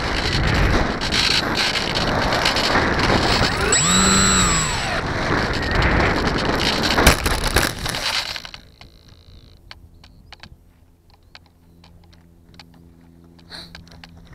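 Wind rush and motor noise on a foam RC plane's onboard camera as it glides in to land, with a brief whine rising and falling about four seconds in. A sharp knock comes near seven seconds as it touches down in the grass. The noise then cuts away to quiet, with faint ticks and rustles near the end.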